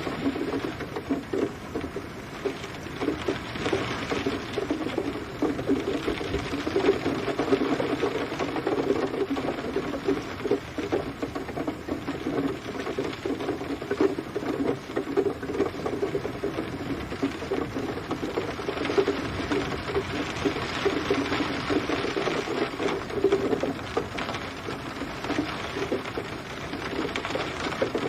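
Steady rain pattering on a surface, a dense, rapid patter of drops.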